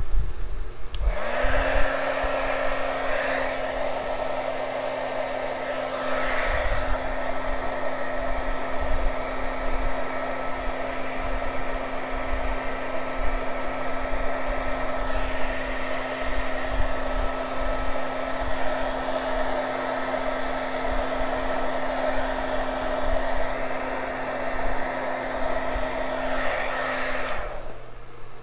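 Electric heat gun switched on about a second in, its fan motor spinning up to a steady whine over the rush of air, then switched off near the end. It is blowing hot air over a wet acrylic pour mixed with silicone, to bring up cells in the paint.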